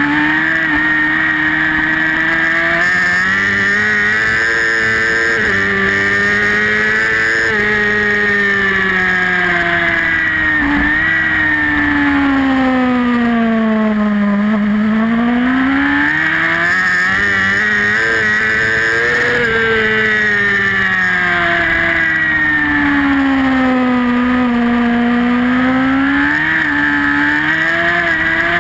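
Racing superbike engine at full race pace, heard onboard: the pitch climbs in steps through several upshifts, falls away twice as the rider brakes and downshifts into a corner, about halfway through and again near the end, then climbs hard again out of each corner.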